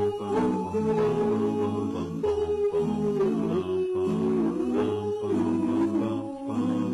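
A cappella vocal music: voices humming a melody over sustained lower notes that shift every half second or so.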